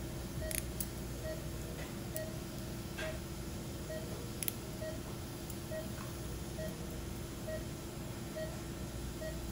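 Operating-room patient monitor beeping steadily, about two short beeps a second, over a steady equipment hum, with a few sharp clicks of steel surgical instruments (clamps and scissors) handled at the table.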